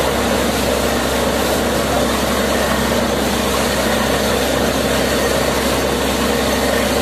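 Borewell drilling rig's engine running steadily under a strong gush of water blowing out of the borehole and splashing on the ground: the new borewell has struck water.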